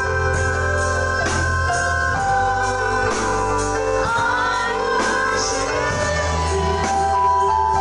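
Live church worship band playing a slow gospel song: keyboard and electric guitar under voices singing into microphones, with a steady beat.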